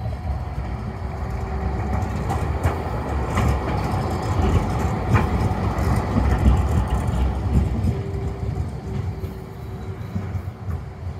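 Bombardier Flexity Classic low-floor tram passing close by on a curve: a low rumble of wheels on rails that swells as it goes past, with a few sharp clicks along the way, then eases off as it moves away.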